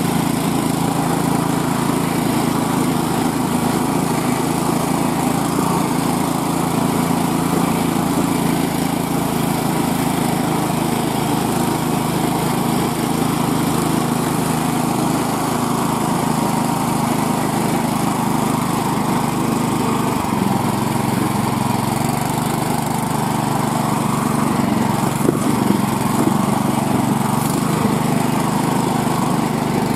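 Small single-cylinder gasoline engine of a homemade motorized snow sled running steadily as the sled travels through snow; the engine speed eases slightly about two-thirds of the way through.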